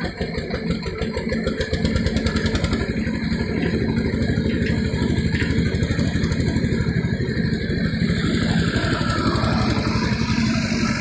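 Shantui SE90-9 crawler excavator's diesel engine running steadily with a fast, even pulse as the machine digs and lifts a bucket of soil.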